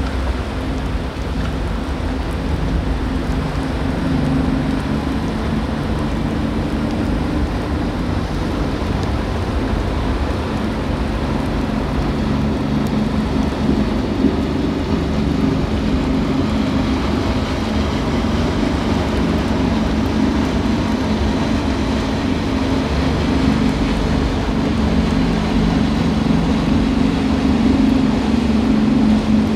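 Inboard engines of a large sportfishing boat droning as it runs through the inlet, getting louder near the end as it comes close. Under it a steady rumble of wind on the microphone and rushing water from the wake.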